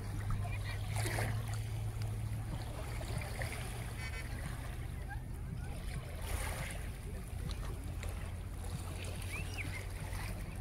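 Seashore ambience: small waves lapping at a rocky shore with wind on the microphone, over a steady low hum, and a couple of brief swells of noise.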